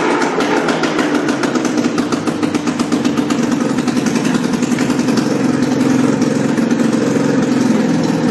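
Two-stroke 440 snowmobile engine fitted in a golf cart, running steadily and loudly with fast, even firing pulses.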